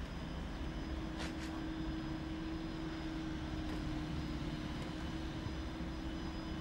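Alstom Citadis X05 tram rolling slowly past, a steady hum with one held tone through it. A short hiss about a second in.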